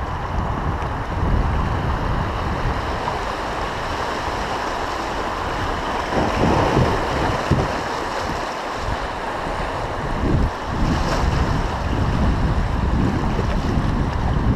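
Rushing water of a shallow river riffle around a kayak running through it, with wind buffeting the microphone in low rumbles.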